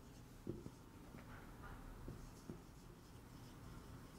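Marker writing words on a whiteboard: faint squeaks and scratches of the felt tip, with a few light taps as strokes begin.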